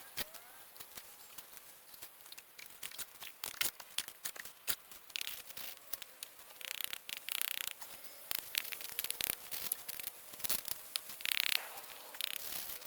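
Hand work with tools or materials: a dense run of quick clicks and knocks, broken by short raspy scrapes, the longest of them about two thirds of the way in.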